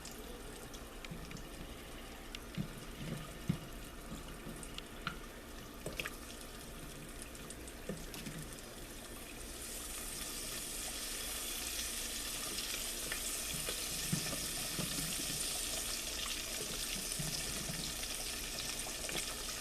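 Hand-cut fries and frozen onion rings frying in a deep fryer's oil at about 375 degrees. A few faint clicks at first, then from about halfway in a steady hiss of bubbling oil rises and holds.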